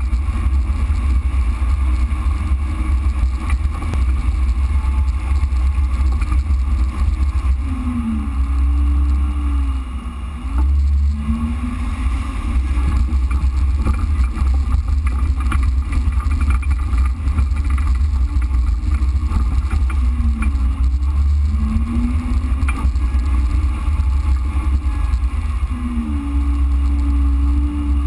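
Jeep Wrangler JK's V6 engine running at trail speed with a heavy low rumble, its pitch rising and falling several times as the throttle is worked, with a brief drop in level about ten seconds in.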